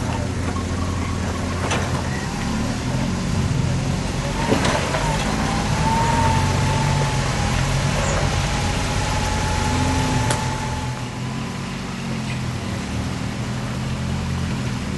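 Off-road 4x4 truck engines running at low revs, rising and falling as the trucks crawl over roots and ruts. A sharp knock about four and a half seconds in, then a thin wavering whine through the middle of the stretch.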